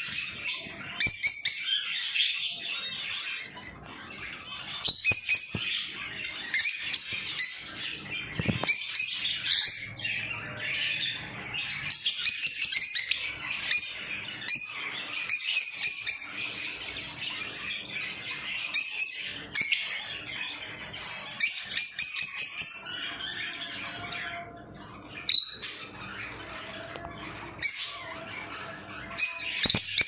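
Rosy-faced lovebirds chirping and squawking: clusters of short, high, shrill calls every second or two.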